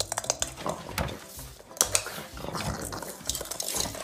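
A pug making noises while a small hard ball rolls and knocks across a tile floor, with many sharp clicks.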